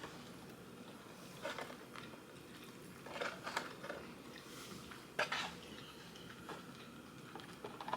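Close-up eating sounds from a burger-and-fries meal: bites and chewing, with a few short crisp crunches spaced a second or two apart.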